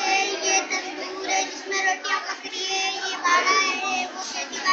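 A child's voice in a sing-song chant, with some notes held.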